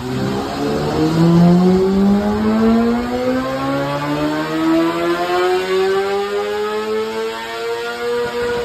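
Kawasaki ZX-10R inline-four sportbike running through an aftermarket exhaust under steady acceleration, its note climbing slowly and evenly in pitch.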